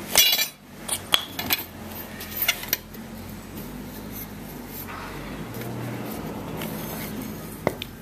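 Metal clinks and knocks as a copper tube is handled and set into a half-inch Imperial Eastman lever tube bender: one sharp ringing clink right at the start, a few lighter taps over the next two seconds or so, and one more click near the end.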